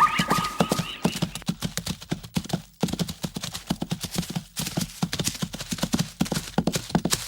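Hooves clip-clopping: an animal walking with many quick, sharp hoof strikes, and a high repeated call that stops about a second in.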